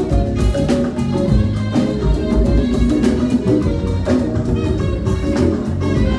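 Live church praise music: a band playing with a steady drum beat under shifting melodic lines.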